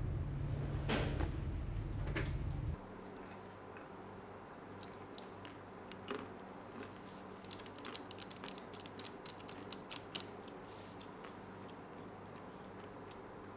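A low steady hum that cuts off suddenly just under three seconds in. It is followed by quiet, then a burst of rapid, sharp mechanical clicks lasting about three seconds near the middle.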